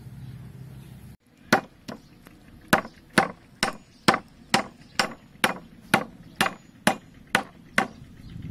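A cleaver chopping lemongrass stalks on a thick round wooden chopping board: about fourteen sharp blows at roughly two a second, beginning just over a second in. Before them a low steady outdoor hum cuts off abruptly.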